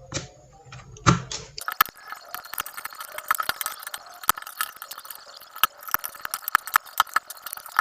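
Many irregular small plastic clicks and clatter as keycaps and switches are pulled from a mechanical keyboard.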